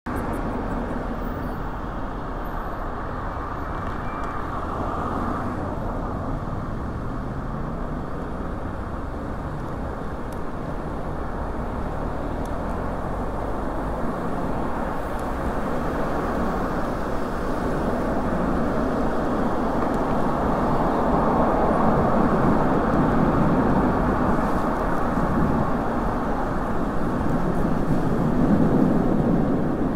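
Steady road noise from riding a bicycle along a wet city street beside car traffic, with no speech; it grows louder over the second half.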